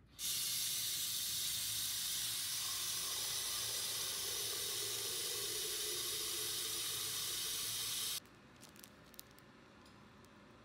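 Tap water running into an empty stainless-steel Daewoo electric kettle; the stream starts at once and stops abruptly after about eight seconds. Near the end, a few faint crinkles from a plastic-wrapped pack of fabric being handled.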